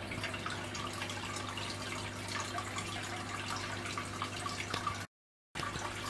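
Marine aquarium's water circulation running: steady trickling and splashing water over a constant low pump hum, with faint drip-like ticks. The sound cuts out for a split second about five seconds in.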